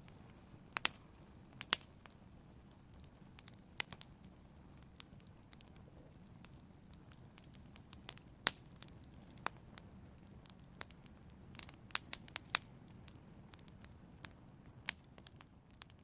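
Wood logs burning in a fireplace, crackling with irregular sharp pops over a low, steady rush of flame, with a quick run of pops about three quarters of the way through.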